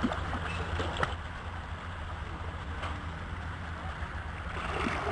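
Pool water splashing and lapping as a child swims underwater, with a few sharp splashes in the first second and a swell of splashing near the end, over a steady low rumble.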